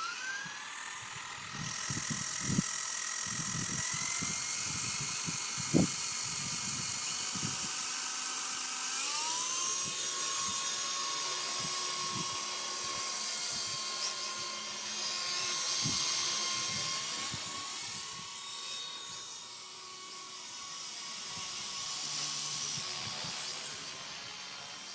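WLtoys V912 single-blade RC helicopter's electric motor and rotor whining as it spins up, then running steadily and stepping up in pitch about nine seconds in, wavering with the throttle after that. A few sharp knocks come through, the loudest about six seconds in.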